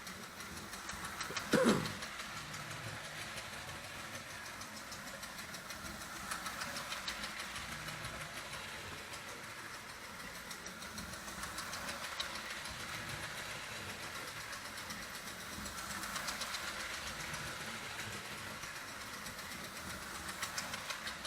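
Marx O27 toy steam locomotive running on its track, its electric motor and mechanical chug-chug sound device going steadily, getting louder and softer a few times. About a second and a half in, a brief loud sound falls quickly in pitch.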